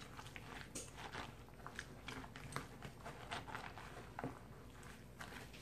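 Spatula stirring chopped cabbage slaw dressed with sauce in a plastic bowl: faint, irregular wet crunching and scraping, with light clicks against the bowl.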